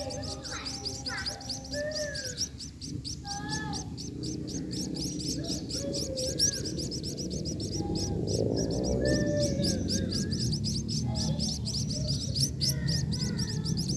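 Small birds, emprit padi munias, chirping: a fast, unbroken run of high chirps with scattered short gliding calls beneath it. There is a lower call about halfway through.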